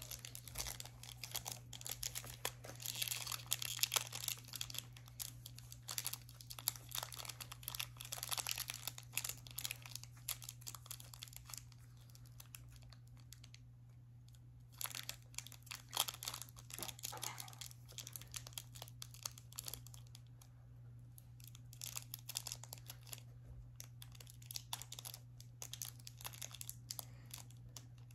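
Foil wrapper of a Pokémon trading-card booster pack being torn open and crinkled by hand, in irregular crackles with a quieter pause about halfway through.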